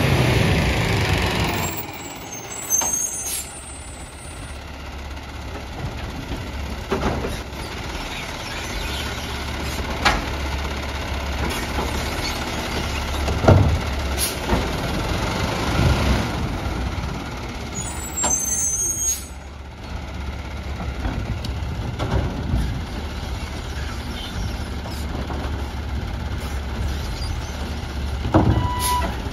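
Peterbilt garbage truck with a New Way Sidewinder automated side-loader body running, with a hiss of air brakes at the start. Its hydraulic arm then grips, lifts and empties a trash cart, bringing a series of sharp clunks and knocks, another of them near the end.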